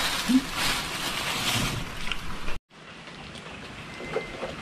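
Steady rain, with a plastic bag crinkling as it is handled over the first couple of seconds. The sound cuts off abruptly about two and a half seconds in and comes back as quieter rain.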